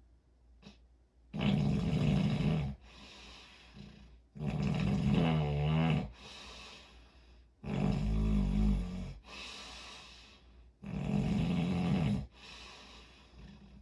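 Snoring: four loud snores about three seconds apart, each followed by a softer breath.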